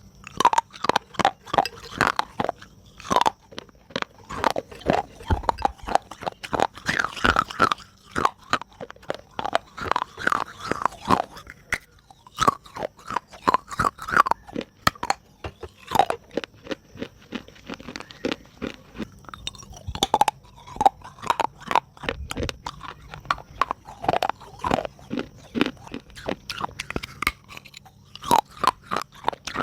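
Soft clay pot pieces crunching wetly: rapid, irregular runs of sharp crunches with short pauses between bursts.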